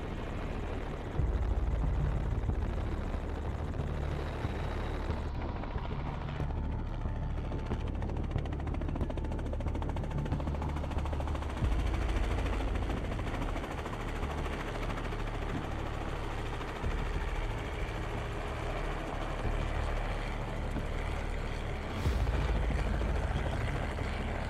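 Small helicopter running, a steady low rotor beat with engine noise; the loudness jumps abruptly a few times.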